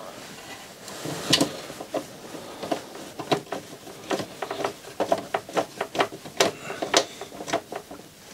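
Irregular small clicks and taps, a few a second and unevenly spaced, from hands working on a CD player's drive mechanism while fixing a part into position.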